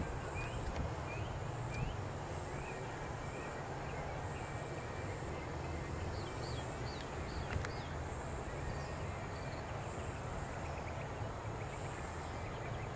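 Open-air field ambience: a steady low rumble, with small birds chirping in quick series of short rising notes, a run of them at the start and a few higher ones midway, and one sharp click about seven seconds in.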